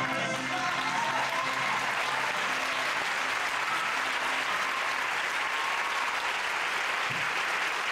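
Theatre audience applauding, with the last of the recorded rock song fading out under the clapping in the first two seconds.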